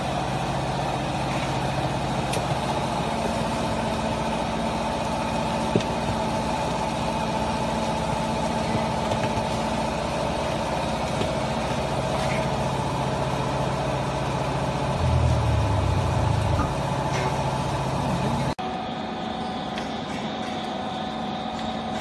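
Hydraulic power unit of a vertical baler running with a steady hum, swelling louder and deeper for a couple of seconds about fifteen seconds in. Near the end the sound changes abruptly to a quieter, different hum.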